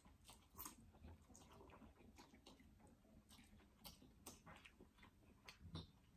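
Faint sounds of people eating noodles: scattered soft slurps, mouth smacks and small clicks, as from forks against plastic bowls.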